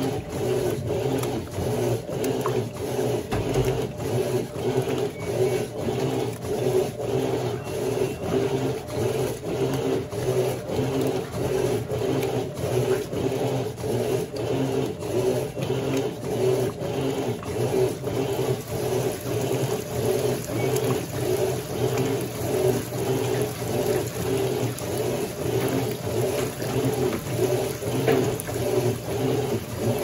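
Electrolux Turbo Flex LQ11 top-loading washing machine agitating: the agitator churns the laundry back and forth through the wash water, with the motor and water swishing in a steady rhythm of a little more than one stroke a second.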